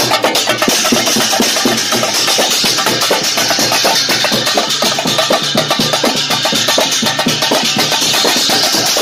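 Drums beaten in a fast, steady rhythm, with crowd noise mixed in.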